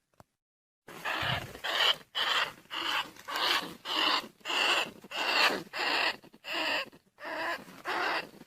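Rat squeaks played as a lure to call rice-field rats and bandicoot rats. After about a second of silence comes a steady run of short, rasping squeals, about one and a half a second.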